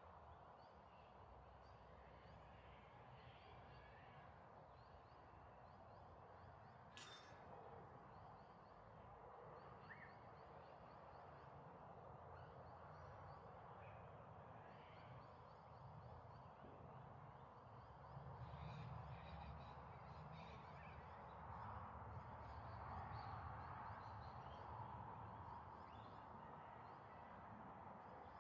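Faint dusk bush ambience: scattered distant bird calls and short high chirps over a low rumble that grows a little louder in the second half.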